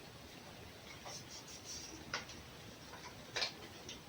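A few faint, scattered clicks and ticks over a quiet background, the loudest about three and a half seconds in.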